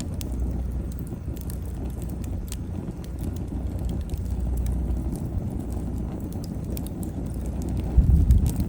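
Wood fire burning: scattered sharp crackles and pops over a steady low rumble of flames, with a louder low surge near the end.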